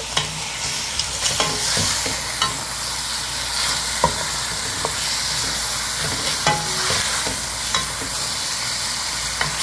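Meat on the bone and garlic cloves sizzling in oil in a granite-coated pot, stirred with a wooden spoon. The spoon knocks and scrapes against the pot about once a second over the steady sizzle.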